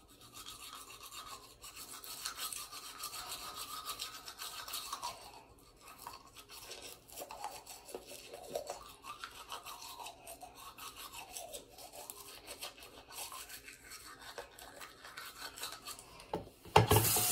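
Teeth being scrubbed with a manual toothbrush, in uneven back-and-forth strokes. About half a second before the end, a tap starts running into the sink.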